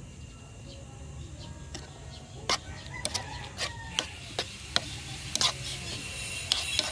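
Metal spoon clinking against a bowl in irregular sharp taps as a salad in vinegar is stirred, starting about two and a half seconds in.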